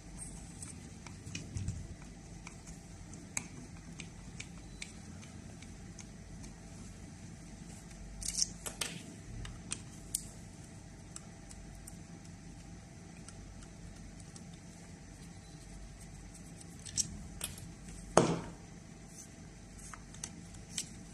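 Scattered light clicks and clinks of small hard objects being handled, with louder knocks about eight and eighteen seconds in, over a steady low hum.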